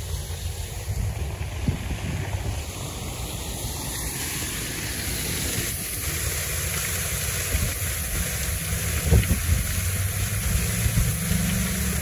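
Steady rushing of a small decorative waterfall spilling over a stone wall into a pond, with wind buffeting the microphone in uneven low gusts.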